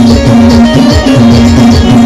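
Timli band music: a fast, driving drum beat with a repeating melody line and regular cymbal strikes over it.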